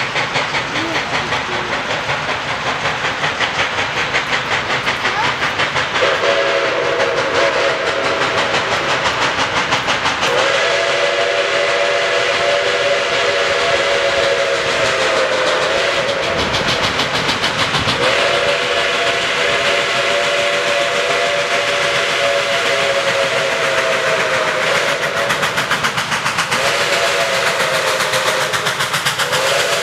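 Nickel Plate Road 765, a Berkshire 2-8-4 steam locomotive, working hard on its approach, its exhaust chuffing rapidly. About six seconds in its steam whistle starts blowing a series of long blasts, with short breaks between them.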